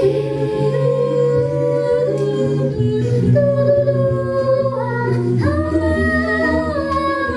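A cappella choir holding sustained chords in several voice parts over a low bass line. The chord changes about three seconds in and again about five and a half seconds in.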